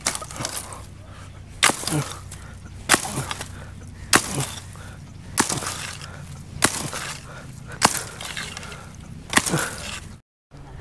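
Kikar (acacia) branches being chopped with a hand blade: about eight sharp chopping strikes, evenly spaced a little over one a second.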